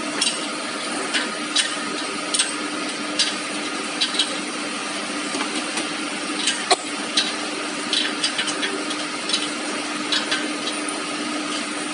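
Irregular metal clicks and taps from the sanding-belt tensioner adjuster of a CD grinding machine being turned by hand to raise and tighten the belt, over a steady hum.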